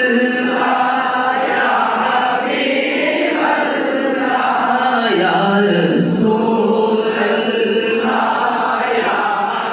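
A man singing a naat, an Islamic devotional song, into a microphone, drawing out long, wavering held notes.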